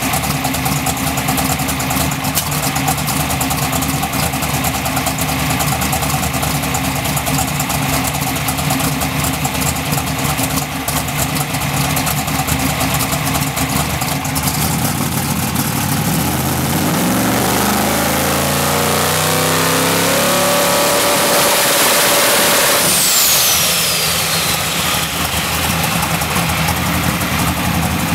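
Twin-turbo, alcohol-injected Pro Mod drag engine of a 1970½ Camaro Z/28 idling during warm-up. About sixteen seconds in it is brought up slowly to a higher speed, held briefly, then dropped back to idle about seven seconds later, with a high whistle falling in pitch as it comes down.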